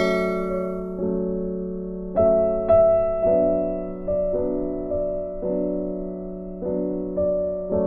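Background music: soft piano chords, a new chord struck about once a second, each fading before the next.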